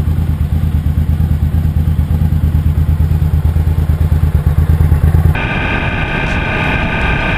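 Suzuki V-Strom 1000's V-twin engine running with a steady, low pulsing note. About five seconds in it cuts off abruptly and music takes over.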